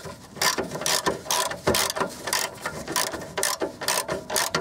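Socket ratchet clicking in quick runs as it swings back and forth, undoing a 13 mm brake caliper carrier bolt through a long 13 mm socket.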